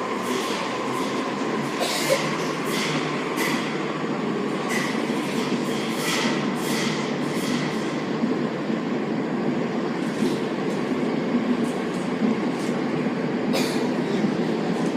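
Sendai Subway Tozai Line linear-motor train running through a tunnel, heard from inside the car. There is a steady rumble, a thin whine that sinks slightly in pitch over the first few seconds, and runs of sharp clicks from the wheels over the track.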